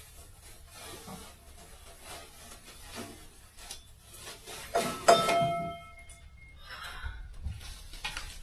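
Camping cookware being handled: rustling and scraping, then a loud metallic clank about five seconds in that rings for about a second and a half.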